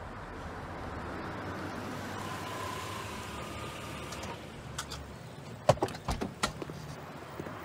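A car running quietly at the curb, then a short cluster of sharp clicks and knocks about two thirds of the way through, the first the loudest.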